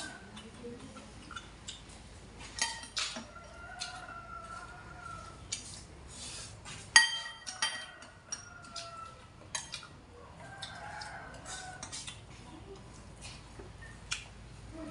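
Chickens calling in the background, several drawn-out calls of about a second each. Chopsticks and a spoon clink against china bowls, the loudest a sharp ringing clink about seven seconds in.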